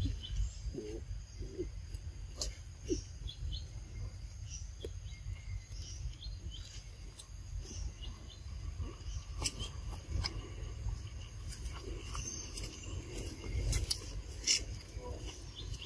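Outdoor ambience: faint steady insect chirring high up, over a low rumble, with scattered faint clicks and a few short soft sounds about a second in.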